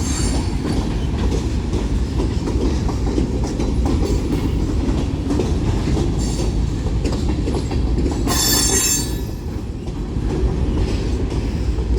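Freight cars of a BNSF manifest train rolling past: a steady heavy rumble with faint clacking over the rail joints. A short, high-pitched wheel squeal rises about eight seconds in, with fainter squeals near the start and about six seconds in.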